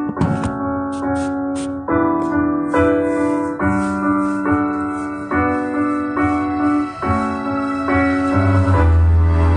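Keyboard music: held chords that change about once a second, with a few light clicks near the start and a deep bass note coming in near the end.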